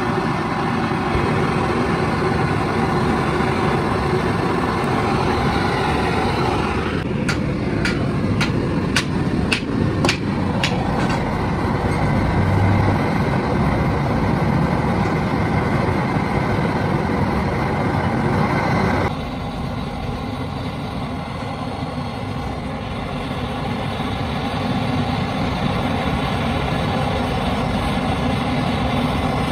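Gas welding torch flame hissing steadily while cast iron is welded onto a worn cast iron piston with a filler rod. A run of about seven sharp ticks comes about a third of the way in, and the hiss turns quieter and duller a little past the middle.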